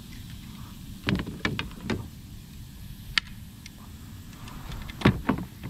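Knocks and rattles of a landing net being handled against a plastic kayak: a cluster of knocks about a second in, one sharp click around three seconds, and a louder cluster near the end, over a low steady rumble.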